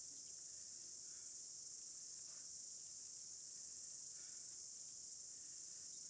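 Faint, steady high-pitched insect chorus in the summer outdoors, an even shrill drone with no breaks.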